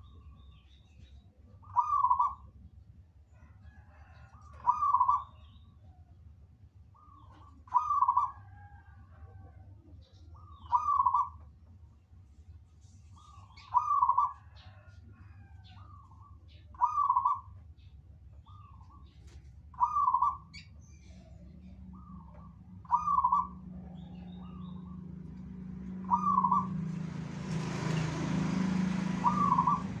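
Zebra dove (perkutut) cooing its song phrase about every three seconds, ten times, with faint chirps of other small birds between. Near the end a broad rushing noise swells up and eases off.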